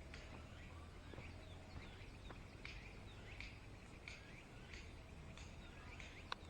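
Faint birds chirping now and then over quiet outdoor background noise, with one sharp click near the end.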